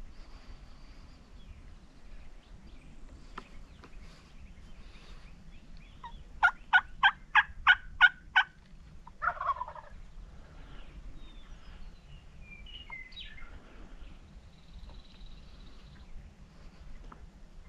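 Rio Grande wild turkeys calling: a run of seven loud, evenly spaced hen yelps about six seconds in, followed about a second later by a short rattling gobble.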